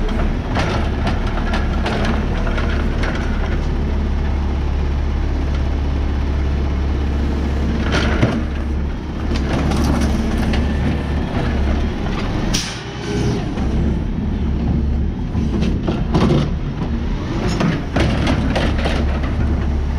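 Peterbilt 520 garbage truck's engine running with a steady low rumble while its McNeilus AutoReach automated arm lifts and empties a trash cart, with several sharp clunks and bangs from the cart and arm, the loudest about eight and twelve seconds in.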